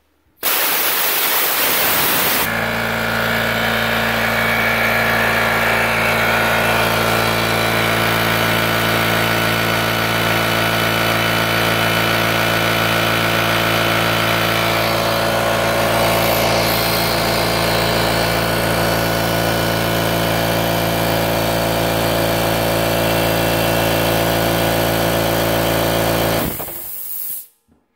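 Compressed air hissing out for about two seconds as the tank pressure is bled off. Then the Rol-Air pancake compressor's 1.5 HP electric motor and oil-lubricated piston pump cut in and run steadily, filling the tank. Near the end the pressure switch cuts the motor off and it winds down, with a short psst of air from the unloader.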